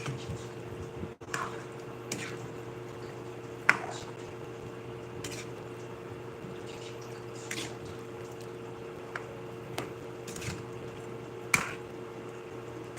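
Scattered sharp clicks and taps, about one every second or two and two of them louder, over a steady electrical hum.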